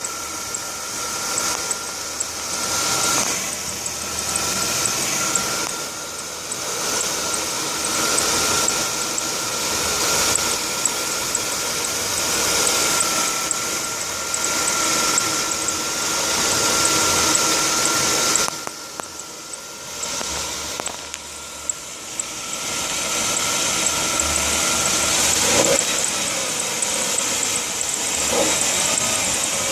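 Chrysler Concorde engine running with its drive belt squealing in a steady high pitch, typical of a slipping belt. The squeal drops out briefly about two-thirds of the way through and stops near the end while the engine keeps running.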